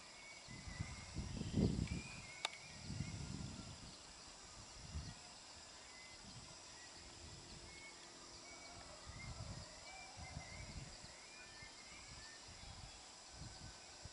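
Night-time outdoor ambience: insects chirring steadily, with scattered short chirps. Several brief low rumbles come and go, the strongest about a second and a half in, and there is one sharp click soon after.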